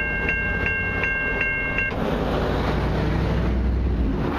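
Railway level-crossing bell ringing about three times a second, then stopping about two seconds in, as the crossing signal shuts off once the train has cleared. A low rumble runs underneath.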